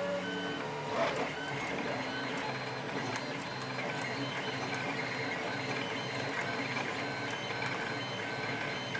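Printers running, their motors whining in several steady tones that jump to new pitches every second or so, with a few faint ticks.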